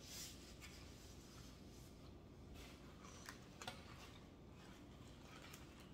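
Near silence, with a few faint light clicks about halfway through, as of a plastic fork against a foam takeout container.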